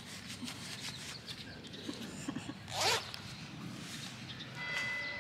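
A hooded jacket's zipper pulled in one quick, rising zip about three seconds in.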